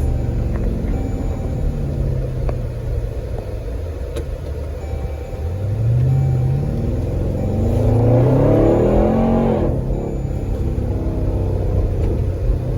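Dodge Durango R/T's 5.7 L Hemi V8, fitted with aFe shorty headers and a cold air intake, accelerating hard. The exhaust note climbs twice, the second pull rising highest before cutting off sharply about ten seconds in.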